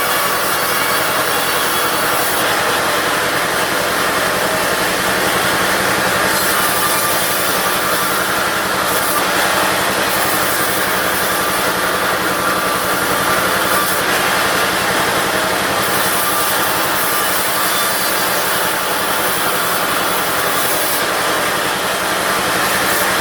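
Diesel-driven push-table bandsaw cutting teak: a steady, continuous hiss of the blade in the wood over the constant drone of the engine.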